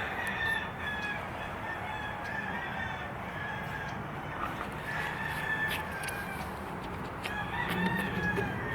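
Several roosters crowing one after another, long drawn-out crows that overlap and recur every couple of seconds, over a steady low hum.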